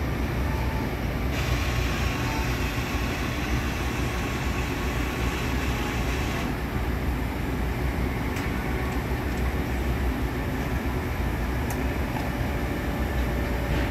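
Franke bean-to-cup coffee machine running after a drink is started. A coarse grinding noise starts about a second in and stops sharply after about five seconds, and a steady low mechanical hum runs underneath as it goes on to brew.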